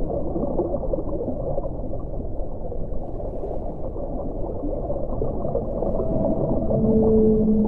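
Underwater ocean ambience: a steady, muffled bubbling and gurgling rush of water. About six and a half seconds in, a long, steady low call comes in.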